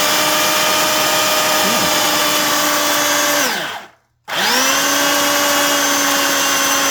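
Sears Craftsman belt sander's electric motor run in two short test bursts, each spinning up fast to a steady whine. The first runs about three and a half seconds and winds down; a moment later it starts again and runs on. The belt tracking is being adjusted between runs.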